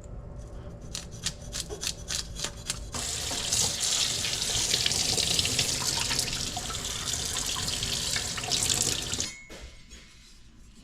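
Water running hard from a faucet into a sink, shut off abruptly about nine seconds in, with a quick series of clicks or knocks before the water comes on.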